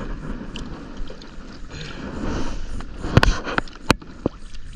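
Handling noise in a kayak, a steady rustle and water wash, broken by two sharp knocks a little past three seconds in.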